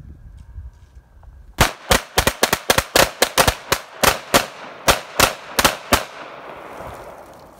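Rapid, uneven gunfire from a Mossberg 715P .22 LR pistol and a Taurus G2C 9mm pistol emptying their magazines together. It comes as about twenty shots in some four and a half seconds, starting after a short pause, with an echo trailing each shot and dying away after the last.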